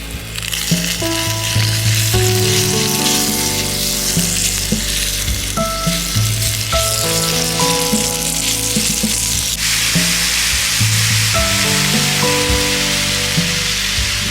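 Meat frying in olive oil in a pan, a steady sizzle that comes up just after the start, with background music of held melodic notes underneath.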